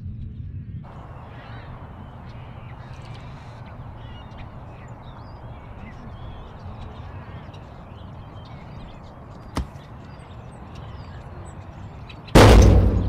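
Outdoor background of a steady low rumble with birds calling, and a single sharp click about ten seconds in. Near the end, loud music with heavy bass hits cuts in, much louder than everything before it.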